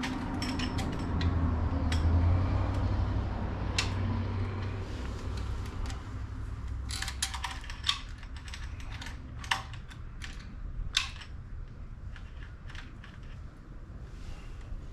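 Scattered light clicks and taps of small metal engine parts being handled and fitted by hand, with a low hum in the first few seconds.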